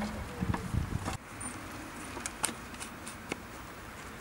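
Hollow knocks and clatter of plastic firework mortar tubes being handled and set into wooden racks, followed by a few sparse, sharp light clicks.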